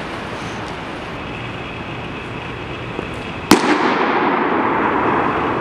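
A baseball smacks into a catcher's leather mitt once, about three and a half seconds in, with a long echo in the gymnasium, over a steady background hiss.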